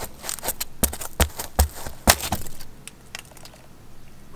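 Half a dozen sharp knocks and scrapes, the loudest about two seconds in, as the hole-saw cut-out (a sheet-metal disc backed with foam insulation) is pushed loose and knocked through a freshly cut 4-inch hole in a bus's sheet-metal side wall.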